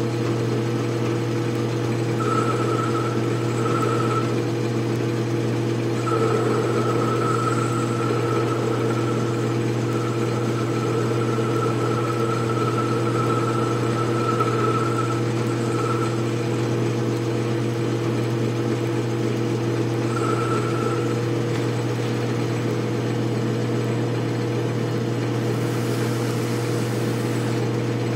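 Atlas 618 metal lathe running at steady speed with a constant motor and drive hum, as a ball turning attachment cuts the spinning metal knob; a higher whine comes and goes several times. Near the end a hiss starts as an abrasive block is held against the spinning part.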